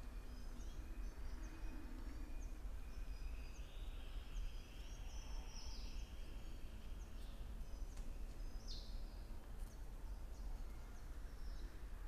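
Faint outdoor ambience: scattered high bird chirps over a steady low background rumble, with a thin high buzz lasting a few seconds in the middle and two short, brighter calls.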